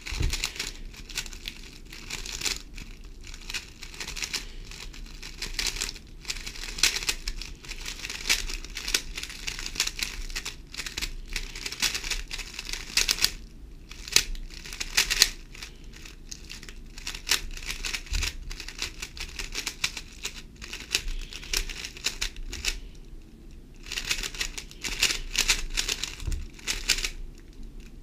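GAN 11 M Pro magnetic speedcube turned rapidly by hand: dense, fast plastic clicking and clacking of the layers as algorithms are run through at full speed, with a few brief pauses.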